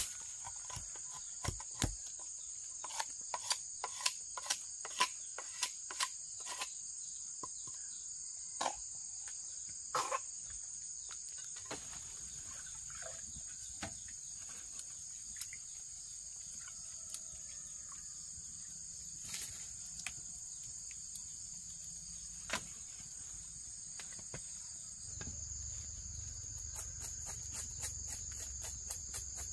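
Steady, high-pitched chirring of insects such as crickets, with scattered sharp clicks and knocks, most of them in the first dozen seconds.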